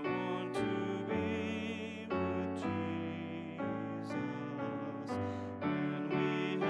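Hymn music led by piano, sustained chords moving every half second to a second.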